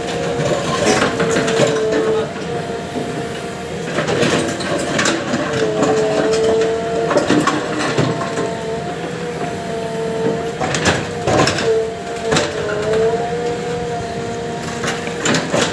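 JCB excavator working: a steady hydraulic and engine whine that dips in pitch now and then, with the bucket crunching through soil and stones and repeated sharp knocks and clatters of rock against steel.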